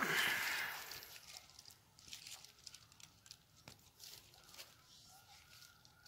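Dry leaf litter rustling and crackling: a loud crumpling rush over about the first second that fades, then scattered light crackles and ticks.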